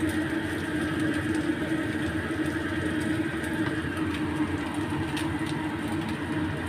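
Stir-frying shredded fish and spices in a frying pan on an induction cooktop, with a wooden spatula stirring and scraping, over a steady low hum. A few light scrapes of the spatula on the pan.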